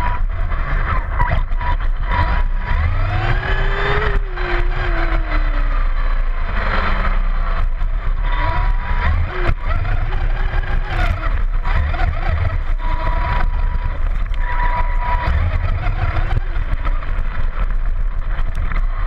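Vaterra Twin Hammers RC rock racer driving over rough ground, heard onboard: its electric motor and drivetrain whine up and down in pitch with the throttle, over a constant rumble and rattle of the chassis and tyres.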